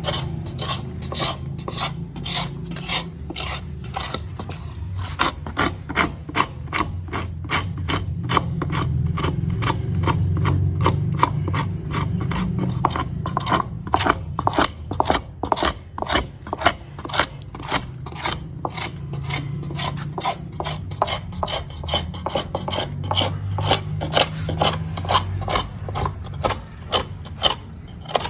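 Repeated hand-filing strokes on the wood of a coconut-wood cricket bat being repaired, a rasping stroke about two to three times a second over a steady low hum.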